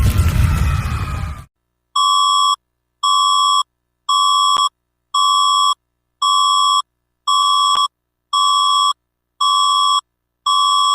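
Electronic emergency-alert beeps: nine identical steady high tones, each about half a second long, repeating about once a second. They follow a loud rumbling noise that cuts off suddenly about a second and a half in.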